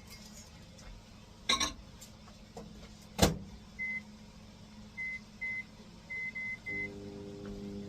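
Microwave oven door clacking shut, then six short keypad beeps as the time is set, and the oven starting to hum near the end as it begins heating a covered bowl of rice.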